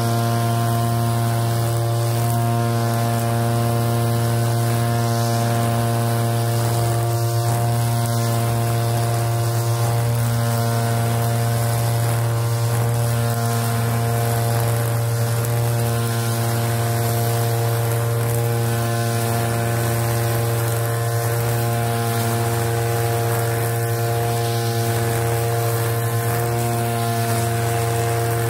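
Backpack brush cutter's small engine running steadily at cutting speed, a constant droning hum with no revving up or down as the line cuts through long grass.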